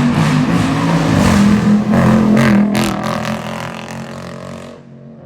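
Jeep SRT V8 with a modified, louder exhaust, accelerating hard. There are two sharp cracks about two and a half seconds in, then the engine sound dies away over the last two seconds.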